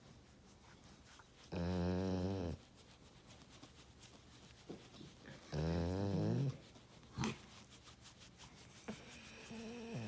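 A dog vocalizing: two drawn-out calls of about a second each, the pitch wobbling up and down, then a short sharp sound and a fainter call near the end.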